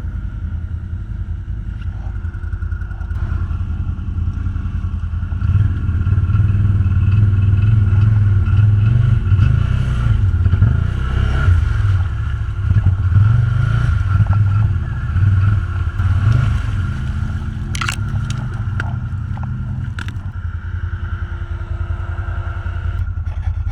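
ATV engine running, then worked harder for about ten seconds in the middle before settling back, with scraping and crunching and a few sharp clicks near the end.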